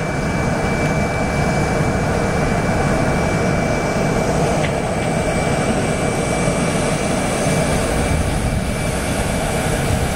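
Jet airliner noise on the apron: a steady roar with a thin high whine on top.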